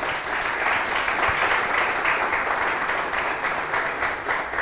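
Audience applauding, a dense, steady sound of many hands clapping.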